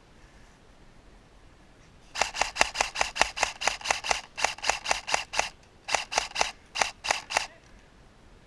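Airsoft rifle firing a quick string of about twenty semi-automatic shots, about five a second, each a sharp click with a short metallic ring. There is a brief pause after about three seconds of firing.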